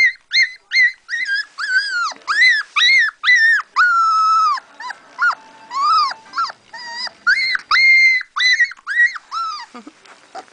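Siberian husky puppy whining and yelping in a quick string of high-pitched, arching cries, a few drawn out longer, stopping near the end.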